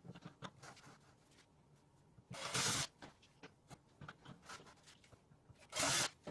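Caster wheels being pushed into holes in the vacuum's plastic body: scattered light clicks and two short scraping bursts, about half a second each.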